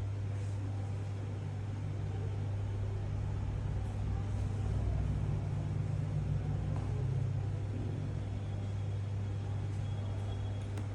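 Steady low hum with no speech, a little louder for a few seconds in the middle.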